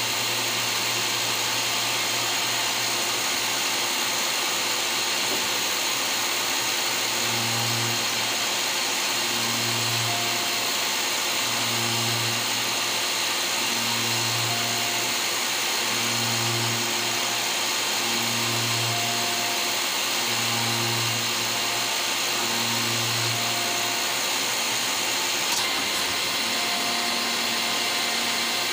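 Citizen Cincom M32 VIII Swiss-type CNC lathe running, cutting brass bar stock: a steady machine hiss, with a low hum that switches on and off about every two seconds through the middle stretch.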